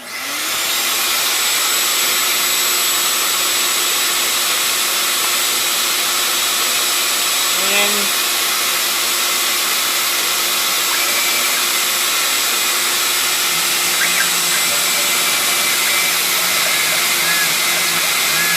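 Shop vacuum used for dust collection on a CNC router, switched on and spinning up in the first second, then running with a loud, steady whine and rush of air. A lower steady hum joins about two-thirds of the way through.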